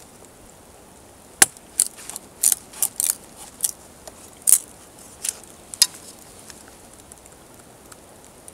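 Knife splitting thin wooden sticks: a string of about a dozen sharp clicks and cracks of wood over about four seconds, starting about a second and a half in.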